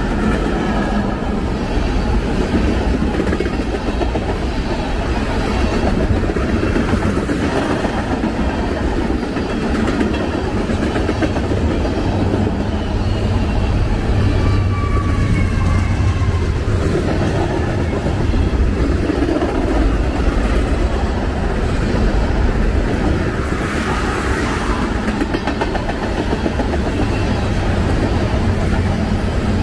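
Norfolk Southern freight train's tank cars and covered hoppers rolling past close by: a loud, steady rumble of steel wheels on the rails.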